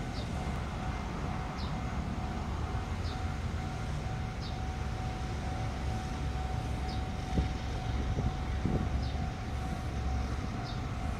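Distant diesel locomotive running slowly along the track, heard as a steady low rumble with a steady hum. A short high chirp repeats about every one and a half seconds over it, and there is a brief thump about seven seconds in.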